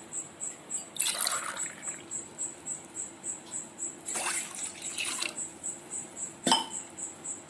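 Water being poured from a glass in a few short pours, with a sharp click near the end. A cricket chirps faintly and steadily, about three times a second.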